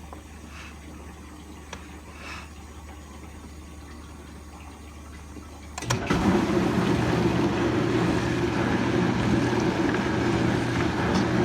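Whirlpool dishwasher with a low steady hum, then about six seconds in a sudden start of a steady rush of water over a motor hum as the machine fills and runs.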